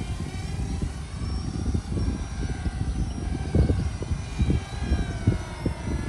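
A micro RC foam jet's small electric motors whine in flight, high-pitched and drifting slowly up and down in pitch as the plane turns and passes. Under it, heavy low gusty rumble of wind on the microphone.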